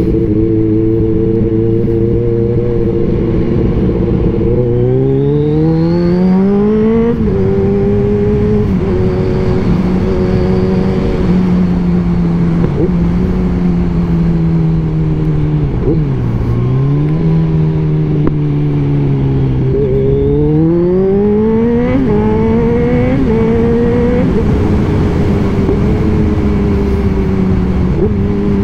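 Kawasaki Z1000 inline-four engine running through its single exhaust while being ridden: it accelerates twice through the gears, the pitch rising and dropping sharply at each upshift, about five seconds in and again after twenty seconds. In between it cruises at a steady pitch, dipping briefly around the middle as it slows and picks up again.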